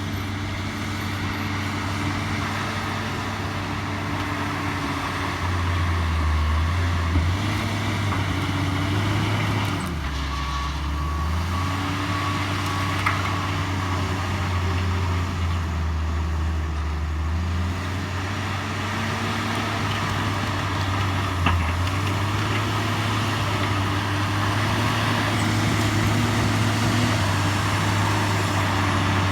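Bulldozer's diesel engine running steadily while working, its pitch dipping and recovering a few times. A short run of faint beeps sounds about eleven seconds in.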